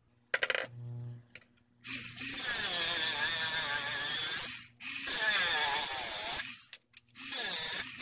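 Homemade sander built from a fan motor, its sanding wheel grinding the edge of a plastic fan part in three long stretches, the pitch wavering as the piece is pressed on. A click and a short low hum come just before the first.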